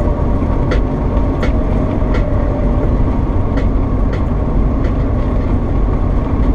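Steady road and engine rumble inside a car cruising on a highway. A light, sharp tick recurs about every three-quarters of a second.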